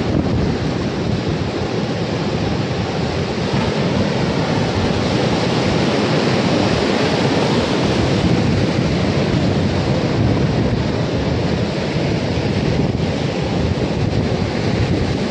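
Rough sea surf breaking hard on the shore in a steady, loud rush, with wind buffeting the microphone.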